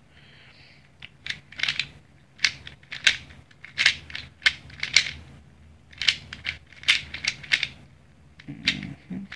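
Plastic speed cube being turned in quick runs of moves, its layers clacking a few times a second with short pauses between runs. The cube is freshly lubed and tensioned.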